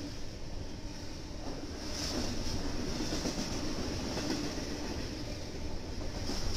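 Fast double-stack container freight train passing close by: a steady rumble and hiss of steel wheels running on the rails.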